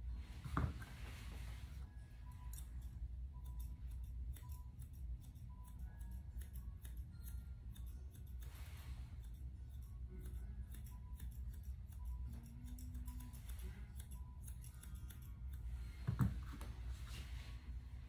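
Grooming scissors snipping through a dog's coat in a quick run of short, crisp cuts. A brief squeak slides downward in pitch near the start and again near the end.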